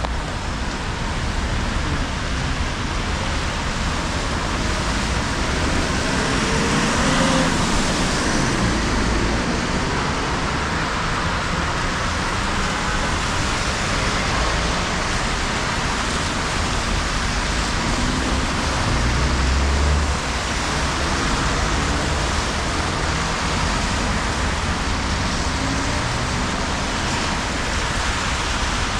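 Steady rain hiss mixed with city traffic on wet streets. A passing vehicle swells up about seven seconds in and another about twenty seconds in.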